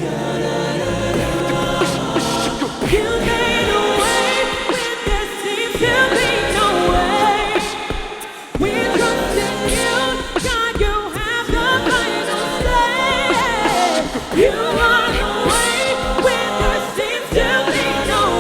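Vocal group singing a worship song in several-part harmony, the voices wavering in pitch, with a brief break about eight seconds in.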